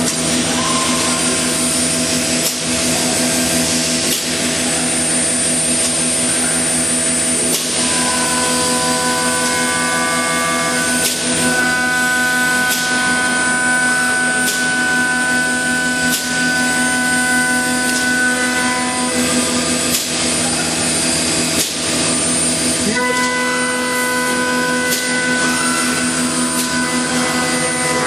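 CNC woodworking machine running: a loud, steady mechanical noise with several whining tones that change pitch a few times as it works, and occasional sharp clicks.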